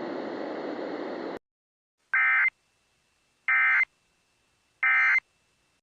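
Emergency Alert System end-of-message: three short bursts of SAME digital data tones, a warbling screech, about 1.4 seconds apart. They mark the end of the weather alert. Before them, a steady hiss cuts off about a second and a half in.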